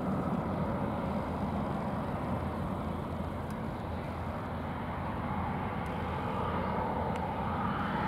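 Jet airliner engines running across the airfield: a steady rumble with a whine that builds near the end.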